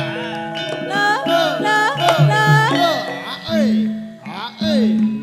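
Javanese gamelan playing a slow gending: held metallophone notes and drum strokes under a sung line that slides and bends in pitch.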